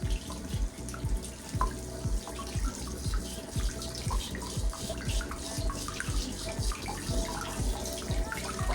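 Water running from a tap into a sink, over background music with a steady beat of about two thumps a second.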